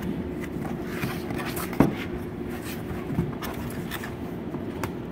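Corrugated cardboard being handled: scraping and rustling as the panels are worked and folded, with scattered light clicks and one sharp knock a little under two seconds in.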